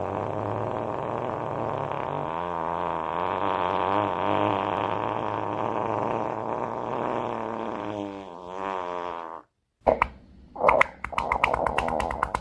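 A long, drawn-out fart with a wavering pitch, stopping about nine seconds in. After a brief gap, a new run of short, sputtering fart bursts begins.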